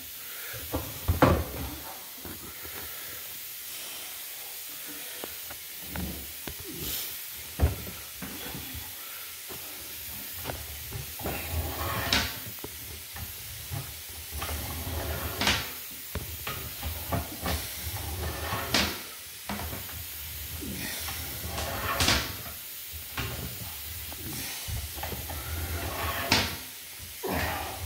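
Irregular knocks and clicks with several short hissing swishes, from a sewer inspection camera's push cable being fed down the line and handled.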